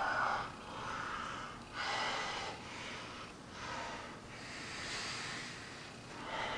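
A man breathing heavily in and out, about once a second, through a full-head silicone mask.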